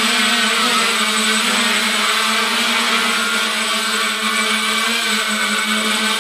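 Quadcopter's electric motors and propellers buzzing steadily as it hovers, holding one pitch.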